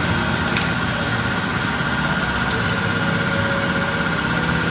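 An engine or motor running steadily, with a steady high whine over a low rumble.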